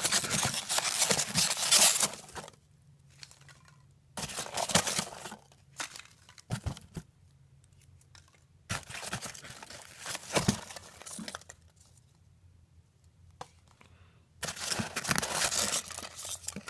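Packing material in a styrofoam-lined shipping box being pulled apart and handled: four bursts of rustling, scraping and tearing with short pauses between them.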